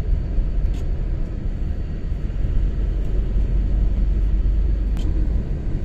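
Steady low rumble of a moving tour coach, its engine and road noise heard throughout.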